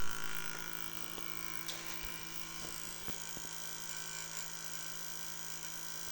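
Steady electrical hum of several held tones from a switched back-EMF circuit, with a louder pop at the very start and a few faint clicks scattered through.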